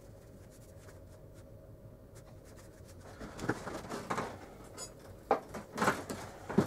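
Faint low hum at first. From about three seconds in, irregular scratchy rustling and light knocks, like cloth and small objects being handled on a table, with the sharpest knocks near the end.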